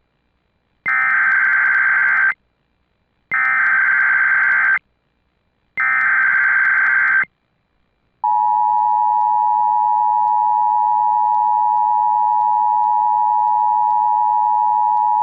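Emergency Alert System broadcast tones: three bursts of SAME digital header data, each about a second and a half with short gaps of silence, then from about eight seconds in the steady two-tone EAS attention signal. The header encodes a Child Abduction Emergency (Amber Alert).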